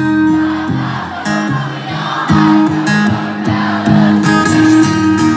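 Live acoustic guitar strumming, with the audience singing along.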